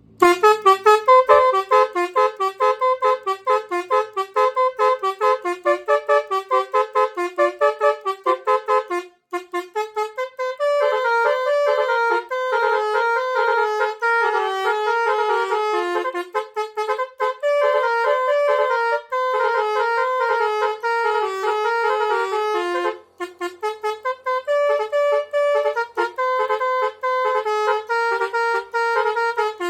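Telolet basuri musical bus horn playing a run of quick melodies, note after note in a bright, trumpet-like tone. The first part is short choppy notes, the rest longer, smoother phrases, with two brief breaks.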